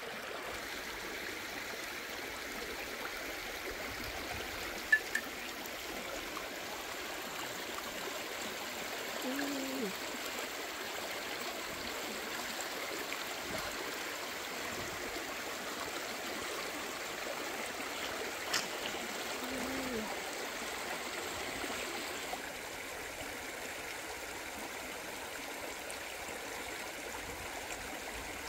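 Shallow stream rushing over rocks: steady burbling water throughout. A sharp click about five seconds in, and another later, stand out briefly above it.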